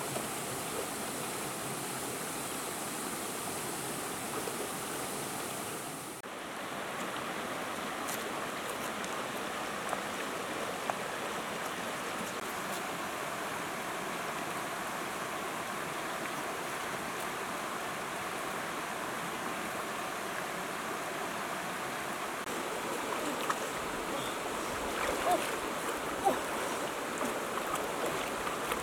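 Steady rush of flowing water, with a few small knocks or splashes in the last few seconds.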